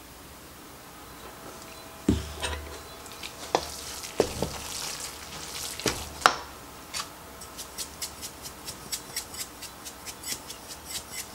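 Hands mixing moist cornbread dressing in a stainless steel bowl, with several knocks against the bowl. From about halfway through, a seasoning shaker is shaken over the bowl in quick even clicks, about four a second.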